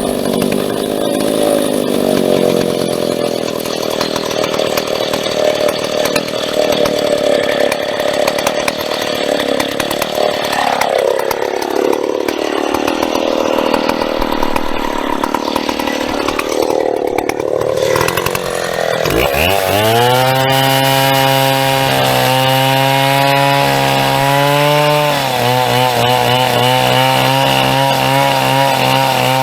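A big vintage Stihl two-stroke chainsaw cutting through a birch stem under load, its engine note wavering as the chain bites. About two-thirds of the way in, the note dips briefly and then settles into a steady, evenly pitched run that steps in pitch a couple of times.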